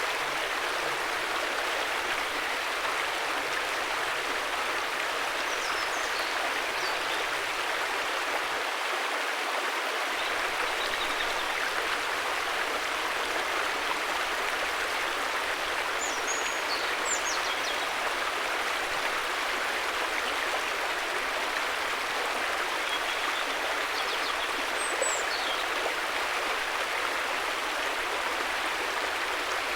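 River water flowing steadily with an even rushing sound. A few faint, short high chirps come through now and then.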